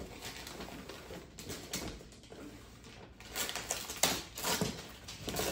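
Gift wrapping paper being torn and crinkled in short crackling rustles, busier from about three seconds in.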